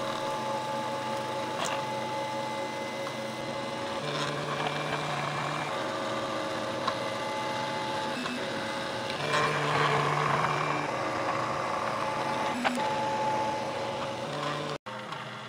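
An FDM 3D printer at work: its stepper motors whine in several steady tones that switch pitch every second or so as the print head changes its moves. A busier, louder stretch comes about nine to eleven seconds in.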